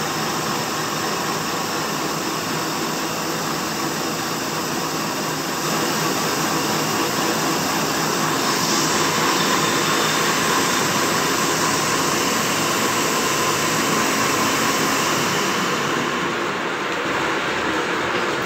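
Tool-post grinder on a lathe resurfacing a clutch flywheel face: the steady hiss of the grinding wheel on the spinning metal, over the hum of the belt-driven grinder and lathe. The grinding gets louder about six seconds in and eases off near the end, as the wheel stops throwing sparks.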